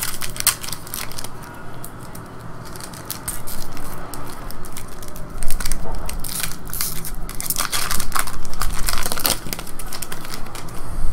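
A foil wrapper on a pack of baseball trading cards being crinkled and torn open by hand. Sharp crackling comes in irregular bursts and is loudest from about halfway in.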